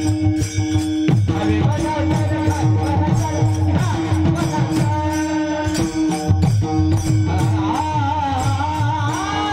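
Marathi devotional kirtan music: a steady drone note runs under repeated hand-drum strokes that fall in pitch, with regular metallic cymbal beats. Near the end a singer's voice comes in, holding a wavering note.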